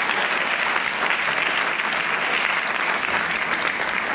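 Theatre audience applauding steadily, a dense patter of many hands clapping at once.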